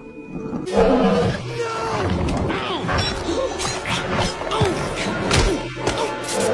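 Animated film soundtrack: music mixed with sound effects, with many short falling pitch glides and a run of sharp knocks and thuds.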